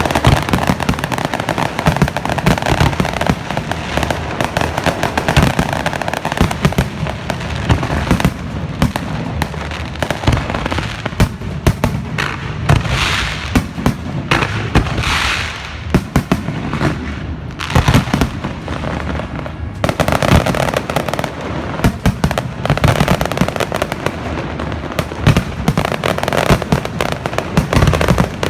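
Fireworks display: many aerial shells bursting in rapid, overlapping succession, with a stretch of crackling and hissing about halfway through.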